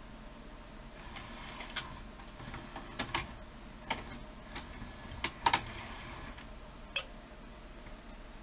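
VHS deck mechanism of a Toshiba DVR20 VCR/DVD combo running under its own motor, with irregular clicks and clacks of levers and cam gears as the guides and pinch roller move through their positions. The repairer guesses the deck is going into a fault mode.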